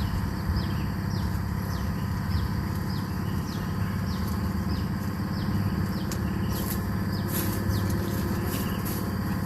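A bird's short, high chirps that fall in pitch, repeated about twice a second, over a steady low hum.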